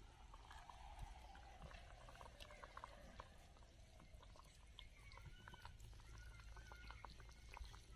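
Faint bubbling of a vegetable curry simmering in an iron kadai over a wood fire, with many small soft pops and ticks.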